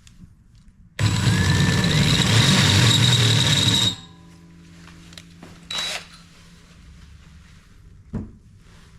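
A handheld power tool runs hard for about three seconds, then its motor winds down. A short second burst comes about six seconds in, and there is a single knock near the end.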